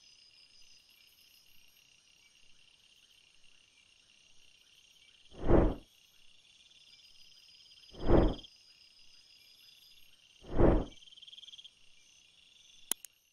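Steady high chirring like a bed of crickets, with three deep whoosh sound effects about two and a half seconds apart and a short sharp click near the end.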